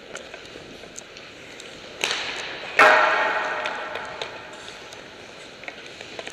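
Ice hockey stick blade tapping a puck on the ice in light scattered clicks. About two seconds in there is a hard knock, then a louder sharp impact that rings and echoes through the arena for over a second.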